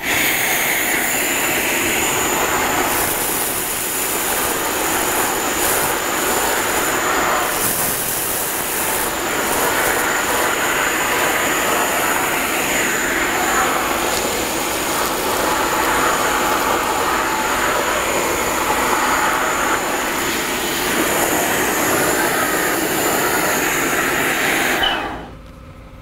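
EXAIR EasySwitch compressed-air wet-dry vacuum running in dry mode, a loud steady rush of air with a steady high whistle, as its nozzle sucks up dry debris from the floor. The air is shut off near the end and the noise drops away.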